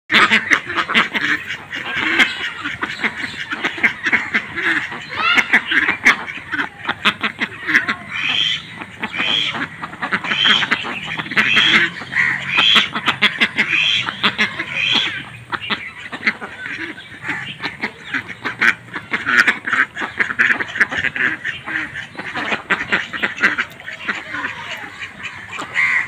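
A flock of domestic ducks quacking almost without pause, many calls overlapping, with a run of evenly spaced quacks about once a second midway.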